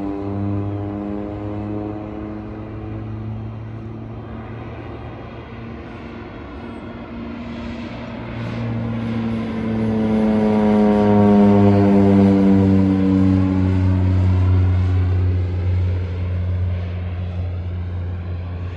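Crop-dusting airplane's engine and propeller droning, fading as it flies off, then coming back and passing close, loudest a little past halfway, its pitch sliding down as it goes by.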